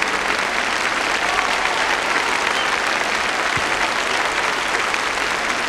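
A large concert-hall audience applauding steadily after a song.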